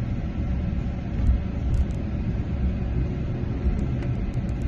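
Steady low rumble of background noise, with a few faint high ticks near the end.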